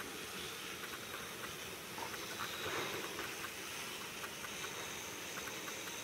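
Model train running round a track helix: a steady whirring hiss of motor and wheels on the rails, with many light, irregular clicks as the wheels roll over the track.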